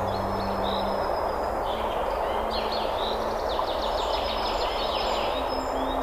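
Rushing water of a small cascading forest stream, a steady rush, with songbirds singing over it in quick trilled and chirping phrases. A low steady hum stops about a second in.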